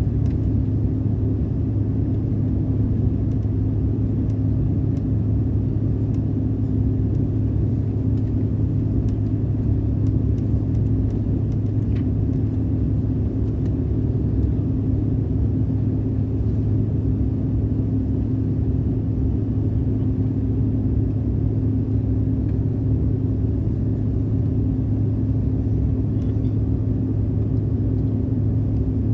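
Steady cabin noise inside a Bombardier CRJ900 in flight: an even low rumble of airflow and the jet's rear-mounted GE CF34 turbofan engines, with a constant low hum underneath.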